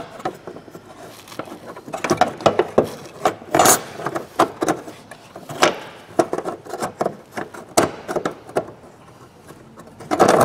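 Irregular clicks and knocks of hard plastic and metal as a fuel pump and level sender unit's plastic flange is pressed down into the tank seal against its spring and its metal lock ring is handled around the tank opening.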